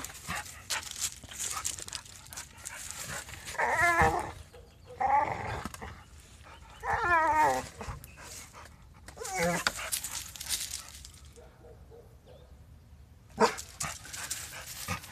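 Dog whining in about four drawn-out, wavering cries, worked up over a cat it cannot reach past the fence, with rustling and scraping in dry leaves between the cries and a sharp knock near the end.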